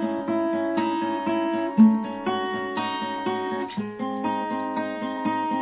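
Acoustic guitar playing an instrumental passage of a slow song: evenly plucked chords several times a second, with a stronger bass note struck about every two seconds.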